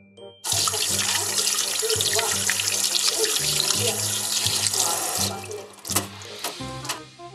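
Kitchen tap running onto hands being washed in a stainless steel sink, a steady hiss of water that stops about five seconds in, followed by a couple of sharp knocks.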